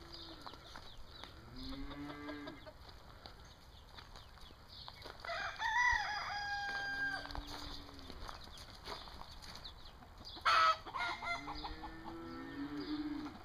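A rooster crows once, about five seconds in, the call wavering and then holding its last note. Lower drawn-out calls come and go, several overlapping near the end, and a short loud burst of sound cuts in about ten seconds in.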